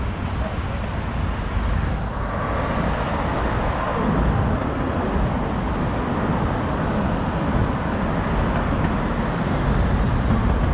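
Road traffic on a busy multi-lane city avenue: cars and trucks driving past in a steady rush of tyre and engine noise, getting a little louder about two seconds in.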